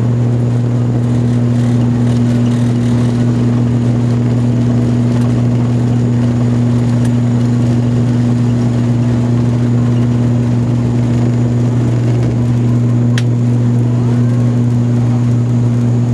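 ATR 72-600 turboprop at takeoff power, heard from a cabin seat beside its six-bladed propeller: a loud, steady drone with a deep propeller hum during the takeoff roll and climb-out.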